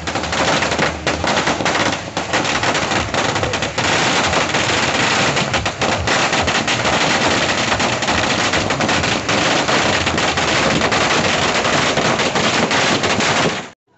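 A long string of firecrackers going off on the ground in a dense, rapid, unbroken rattle of bangs, which stops abruptly just before the end.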